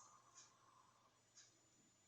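Near silence: room tone with two faint short clicks about a second apart.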